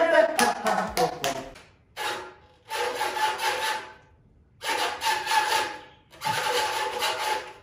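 Edited-in transition sound effect: three swelling whooshes, each with a steady tone running through it and short silent gaps between them.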